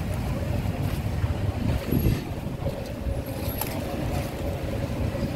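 Steady low rumble of running motor-vehicle engines, with a faint steady hum coming in about halfway through.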